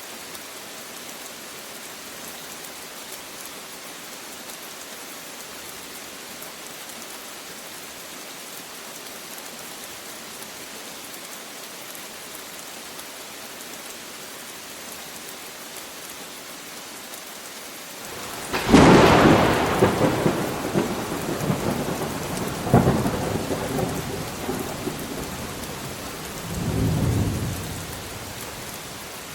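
Steady rain hissing, then about two-thirds of the way through a sudden loud thunderclap crashes in, followed by a second crack and a lower rolling rumble that fades out near the end.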